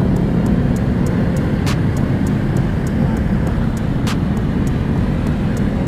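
Several motorcycle engines running at a steady pace with wind and road rush, heard from a motorcycle riding in the middle of a dense pack of motorbikes.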